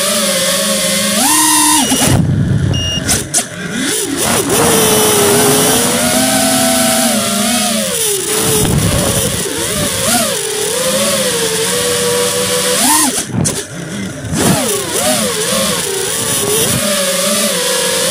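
Radio-controlled car's motor, heard from a camera riding on the car, its pitch rising and falling again and again as the throttle is worked, over a constant rough noise.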